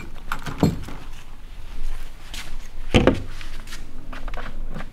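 A few knocks and thumps of tools and parts being handled against a plastic kayak hull; the loudest is about three seconds in.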